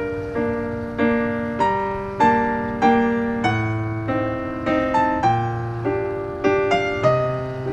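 Background music: a piano playing a slow melody over chords, notes struck about twice a second and left to ring.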